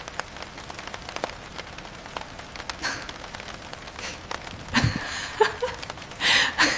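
Steady rain falling, with many small scattered drip ticks. A few louder short noises come about five seconds in and again near the end.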